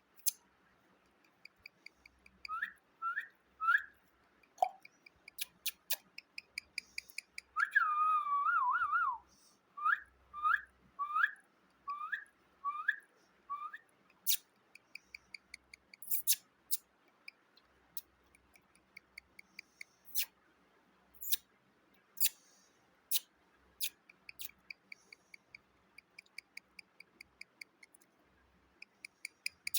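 A parrot whistling: three short upward whistles, then a longer wavering whistle and a run of about six quick upward whistles, after which it falls quiet. Sharp clicks sound throughout.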